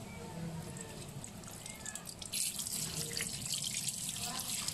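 Kitchen tap running into a stainless steel sink, with water splashing over roundscad fish as they are rinsed and cleaned by hand. The flow starts about halfway through, after some quieter wet handling.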